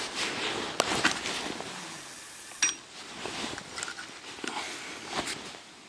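Handling noise from a spinning rod and reel being worked by hand: soft rustling of clothing close to the microphone with a few short, sharp clicks.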